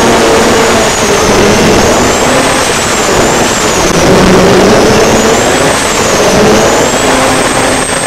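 Turbocharged alcohol-fuelled race boat engine running hard, heard from onboard over a heavy rush of wind and water. A high turbo whine rises and falls about three times as the throttle changes, and holds high near the end.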